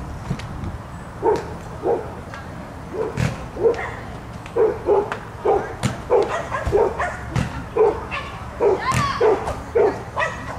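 A dog barking again and again, short yelping barks starting about a second in and coming roughly twice a second through the second half.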